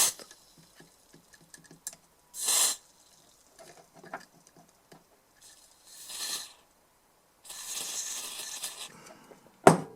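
Aerosol contact cleaner sprayed onto rusted switch contacts in three hissing bursts, the last about two seconds long, with small handling clicks between them and a sharp click near the end.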